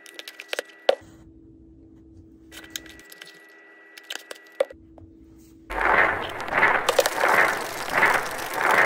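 Plastic supplement tub being handled and opened: scattered light clicks and taps. About six seconds in, a much louder rhythmic rushing sound takes over, pulsing a little more than once a second.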